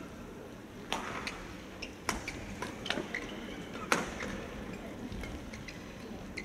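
Badminton rally: sharp cracks of rackets striking the shuttlecock about once a second, the loudest about four seconds in, with short squeaks of court shoes between the hits.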